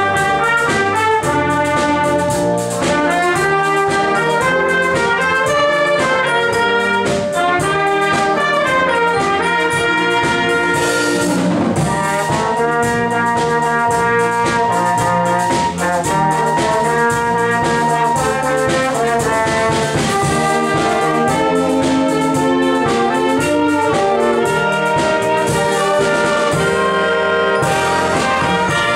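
Community wind band of trumpets, trombones, saxophones, flutes and tuba playing a melodic arrangement of a Japanese pop song.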